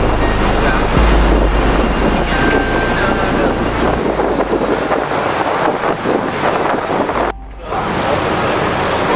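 Heavy wind buffeting the microphone over rushing sea water and a low engine rumble, heard from the deck of a moving ferry. The sound cuts out for a moment about seven seconds in, then resumes.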